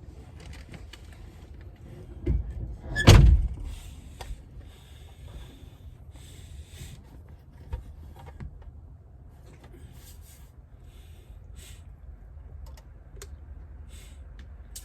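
Two heavy thumps about a second apart, the second one louder, amid light knocks and clicks of handling.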